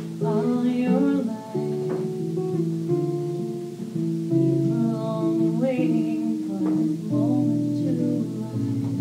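Acoustic guitar playing chords while a woman sings over it, her voice coming in near the start and again about five to six seconds in.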